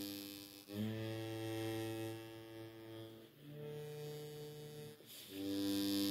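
Hohner Thunderbird low G diatonic harmonica playing long held low notes, with the pitch changing three times.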